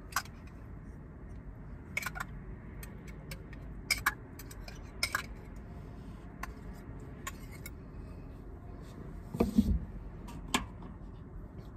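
Kitchen knife scooping minced garlic from a glass jar and scraping it into a cooking pot, the blade clinking and tapping against the jar and the pot rim in a scatter of short sharp clicks, with one duller knock near the end.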